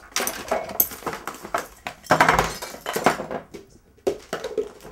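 Hands rummaging through a pile of loose household objects: rustling of a plastic packet mixed with quick clinks and clatters of metal utensils, busiest about two seconds in and thinning out near the end.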